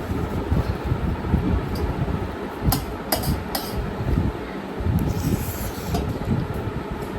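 Steady low rumbling noise of moving air, like a fan blowing across the microphone. Three light clicks of eating come near the middle.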